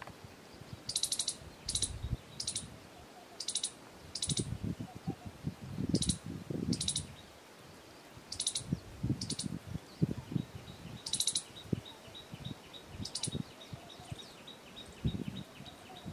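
A squirrel's short, high chirps, each a quick rattle, about eleven of them, coming roughly every second at first and thinning out after about ten seconds, over a low, uneven rumble.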